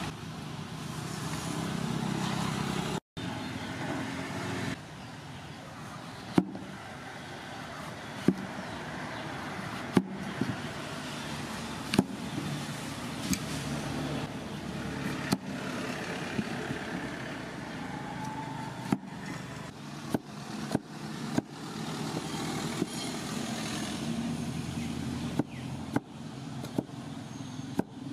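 Cleaver cutting pumpkin on a wooden chopping board: sharp knocks of the blade hitting the board, one about every two seconds, then quicker chops in the later part as the wedges are cubed, over a steady background hiss.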